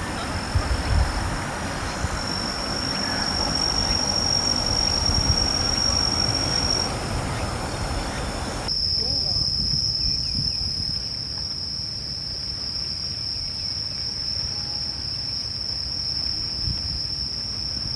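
Insects trilling: a steady high-pitched drone over a noisy background with low rumble. About halfway in the background noise drops away abruptly, leaving the trill clear and steady.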